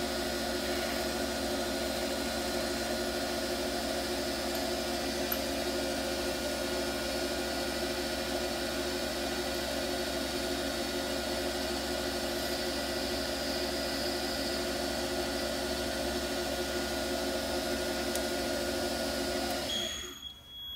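Small ring-making lathe running steadily with a constant motor hum during a finishing cut on a sterling silver (925) wedding band. The machine cuts off near the end.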